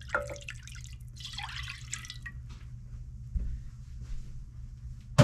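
Liquid from a glass canning jar pouring and dripping into a slow cooker's empty ceramic crock, with a few light clinks at the start and the splashing tailing off after about two seconds. A single dull thump about three and a half seconds in.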